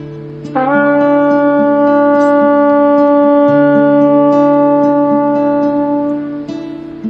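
A shofar blast: one long held note that scoops up in pitch as it starts about half a second in, then holds steady and fades near the end, over a sustained guitar chord.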